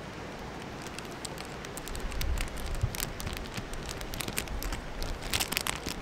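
Thin clear plastic sandwich wrapper crinkling and crackling as hands handle it and pull a sandwich out, the crackles coming thickest near the end.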